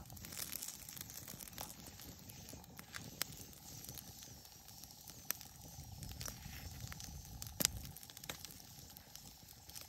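Small wood campfire crackling, with scattered sharp pops, the loudest about three quarters of the way in.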